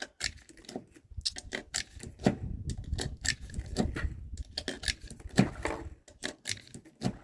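Irregular metallic clicks and light rattles, a few a second, of cartridges being pressed one by one into a pistol magazine.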